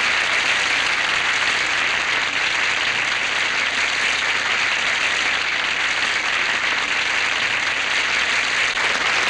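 Audience applauding steadily at the end of a song.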